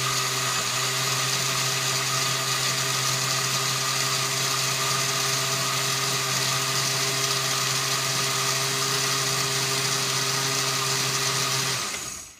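Countertop blender running steadily, blending red cabbage leaves with water into a purple liquid, then switched off near the end.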